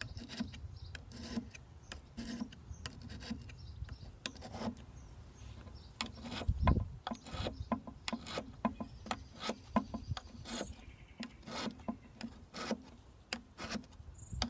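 Wet whetstone rubbed in short strokes along the angled bevel of a steel lopper blade to sharpen the edge, a rasping stroke repeating about twice a second. One louder thump about six and a half seconds in.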